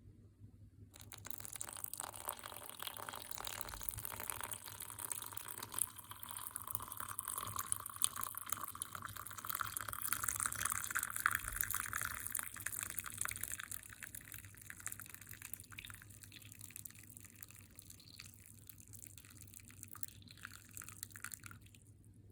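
Hot water being poured into a cup for coffee: a steady pour that starts about a second in, is loudest in the middle, grows quieter and stops shortly before the end.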